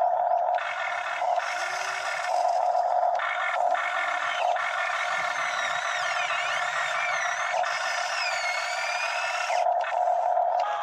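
Radio-controlled Hitachi EX60 scale excavator working its arm and bucket in mud: a steady electric motor whine that cuts out briefly several times, with higher whines gliding up and down through the second half.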